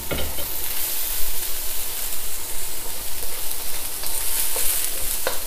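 Beansprouts, carrot strips and sweetcorn sizzling steadily in a hot, lightly oiled wok as they are stir-fried and stirred.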